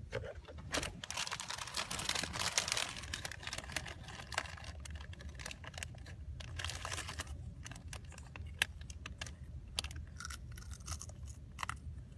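A foil snack bag crinkling in a small hand, in scattered short crackles and clicks, over a low steady rumble.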